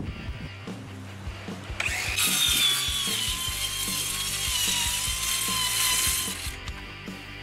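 RIDGID Gen5X R8652 cordless 7-1/4-inch circular saw, with a brushed motor, cutting through a sheet of 7/16-inch OSB. The motor's whine and the blade's cutting noise start about two seconds in, hold steady, and stop about a second before the end.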